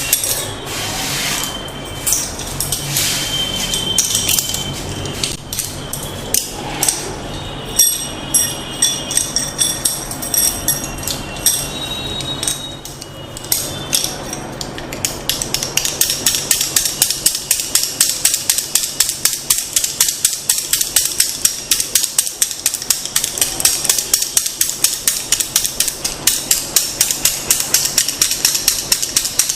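Massage tapping with wooden tools, a series of sharp percussive strikes. It begins with irregular, clattering taps that carry a ringing tone. About halfway through it becomes a fast, even run of taps.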